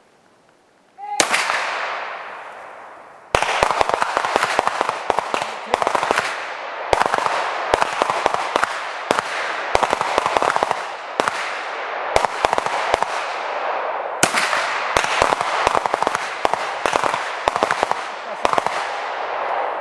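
Pistol shots fired over a pair of chronographs in an ammunition velocity check. A single crack comes about a second in and rings out for two seconds. From about three seconds on comes a dense run of sharp gunshot cracks with overlapping echoes.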